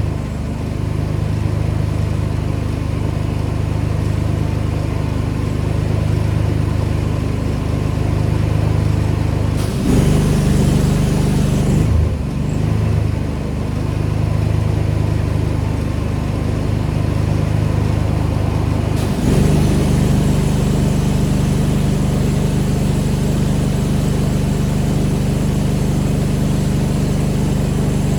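Pressure washer engine running steadily. Its note shifts about ten seconds in, again around twelve, and again near nineteen seconds, with a brief hiss between ten and twelve seconds.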